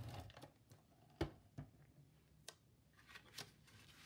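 Faint, scattered clicks and taps, the sharpest about a second in: a tape runner being lifted and set down and card stock pieces handled on a table.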